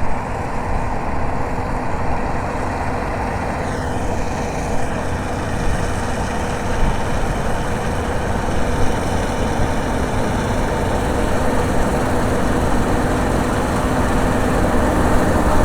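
John Deere combine harvester running steadily while harvesting wheat, a constant heavy engine and machinery noise.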